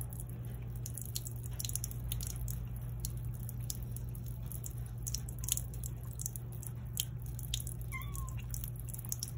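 A cat lapping water from a thin trickle running out of a garden hose, with quick wet ticks of tongue and splashing water over a steady low hum. A brief faint high call sounds about eight seconds in.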